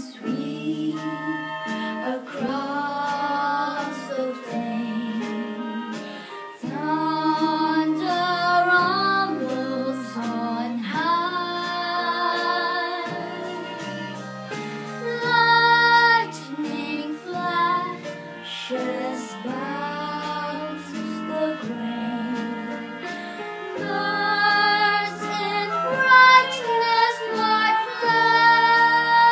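A young girl singing a slow song, with instrumental backing underneath. Her voice wavers on the held notes.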